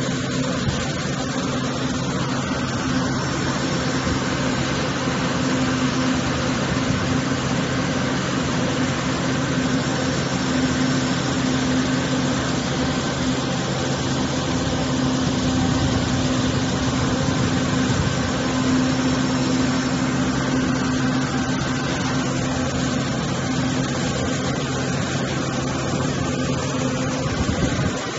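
Fog cannon (spray mist cannon) running steadily: a constant machine hum with a steady tone under an even rushing hiss.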